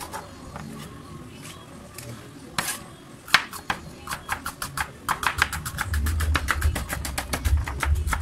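Kitchen knife slicing bitter melon on a wooden cutting board: a few scattered cuts at first, then quick, even chopping strokes, about four or five a second, from about five seconds in.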